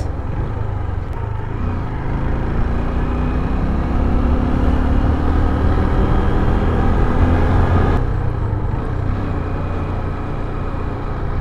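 Motorcycle engine running while riding. Its note climbs slowly and then drops off suddenly about eight seconds in.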